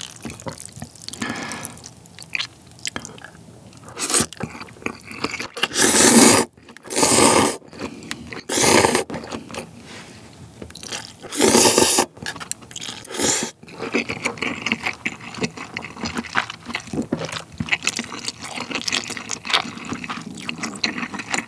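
Close-miked slurping of instant ramyeon noodles, taken in about six loud slurps over the first dozen seconds or so. This is followed by steady chewing of the noodles and lobster meat, full of small wet mouth clicks.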